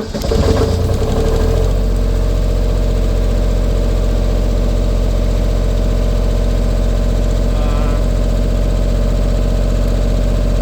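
Miller Big Blue 400D welder's diesel engine starting up, unsettled for a second or two, then running at a steady idle with no belt fitted.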